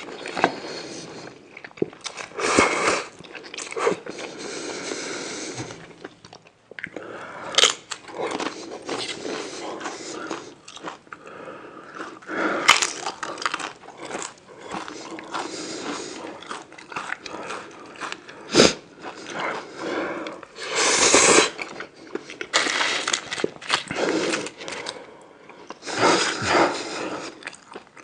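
Close-miked eating sounds: a person biting and chewing food in repeated bursts, with a few sharp crunches.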